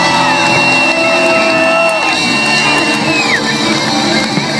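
Loud music over an outdoor sound system, with a long held high note that drops away about three seconds in.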